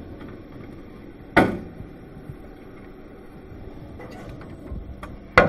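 Knocks from things being handled at a refrigerator: one sharp knock about a second and a half in, then two more close together near the end, over faint room noise.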